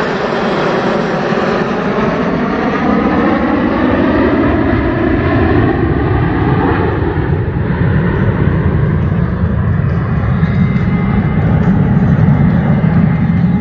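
Formation of jet fighters flying past: a loud, continuous jet roar whose pitch bands sweep downward as the aircraft pass, settling into a deeper rumble in the second half.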